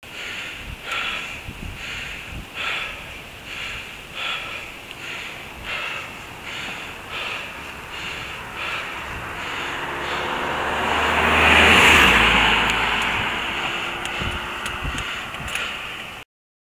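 A cyclist's heavy, rhythmic breathing on a steep climb, a breath a little under every second, over wind rumble on the microphone. A motor vehicle approaches and passes, growing loud about twelve seconds in, then fading.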